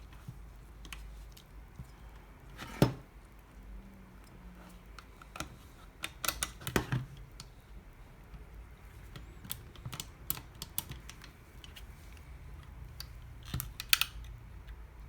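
Heavy-duty stapler being handled and fiddled with: scattered clicks and light knocks of plastic and metal parts, with a few louder knocks about three seconds in, around seven seconds in and near the end.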